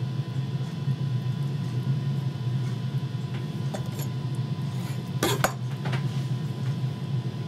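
Kitchen knife knocking on a wooden chopping board while slicing mozzarella: a few sharp knocks, the loudest a short cluster about five seconds in. A steady low hum runs underneath.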